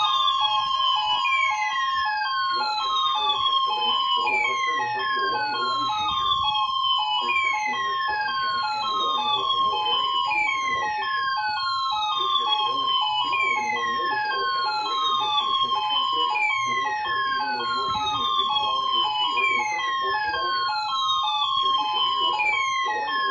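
Several NOAA weather radios sounding their alert alarms together for the Required Weekly Test. A falling siren-like sweep repeats about every three seconds over steady, rapidly pulsing beep tones.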